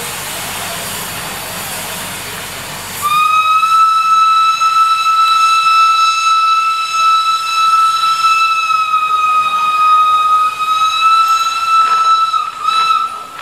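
Steam locomotive hissing steam, then sounding one long, steady whistle blast that starts abruptly about three seconds in and holds for about ten seconds, wavering briefly just before it stops.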